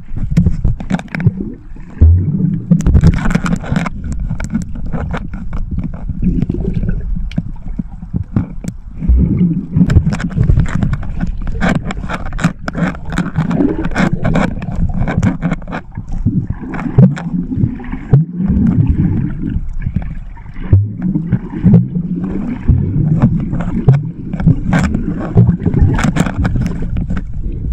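Muffled underwater sound from a camera held under the sea surface: water moving and gurgling around the camera housing, with irregular sharp clicks and knocks.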